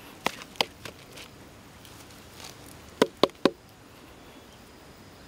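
Freshly sawn round wooden log slices knocked together by hand: a few light wooden knocks in the first second, then three sharp knocks in quick succession about three seconds in.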